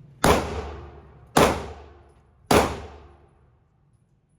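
Three shots from a 9 mm pistol, about a second apart, each ringing on in the echo of an indoor firing range.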